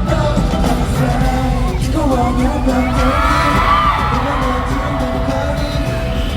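Live K-pop song played loud through a concert sound system, with singing over a heavy bass beat.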